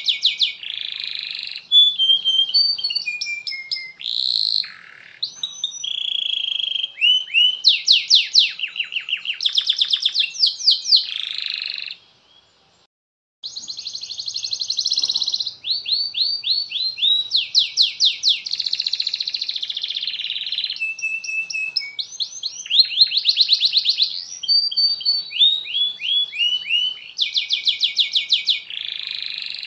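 Canary singing a long, varied song of fast rolling trills and rapid repeated notes, with a silent break of about a second and a half about twelve seconds in.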